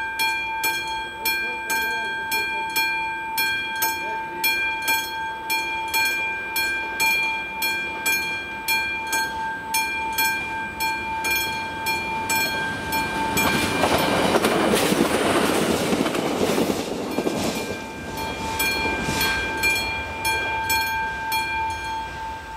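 Level-crossing warning bell of an AŽD 71 signal ringing in a steady rhythm. About 13 seconds in a passenger train passes over the crossing for some five seconds, its rumble and wheel noise drowning the bell, which rings on afterwards and fades near the end.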